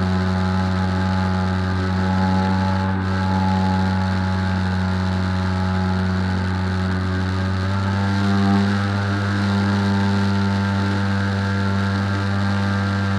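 Skywalker X8 flying wing's motor and propeller droning steadily in flight, heard from the nose of the aircraft. The drone steps up slightly in loudness and pitch about eight seconds in, as the throttle changes.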